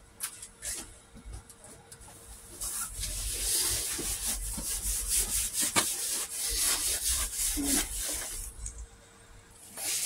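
Close rubbing and rustling handling noise with scattered clicks and knocks, loud for about six seconds from about three seconds in.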